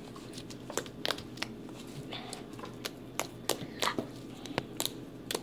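Slime being squeezed and kneaded by hand, making irregular small sticky clicks and crackles.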